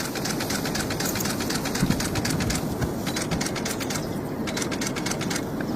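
Steady rumble of an idling vehicle engine, with runs of rapid sharp clicks over it.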